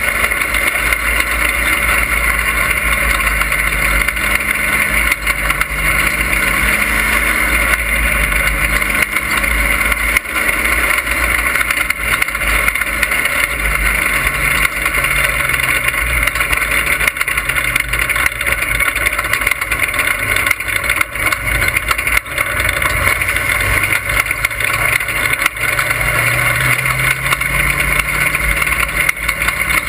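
Dirt-track stock car's engine running hard, heard from inside the cockpit, its pitch rising and falling as the driver gets on and off the throttle, over a heavy low rumble.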